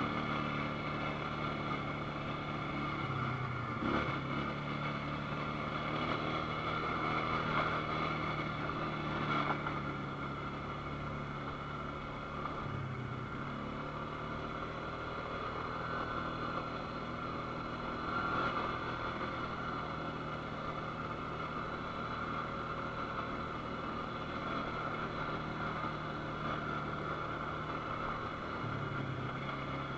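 ATV engine running at a steady pace while riding, its pitch stepping down or up a few times, with a couple of brief knocks from the ride.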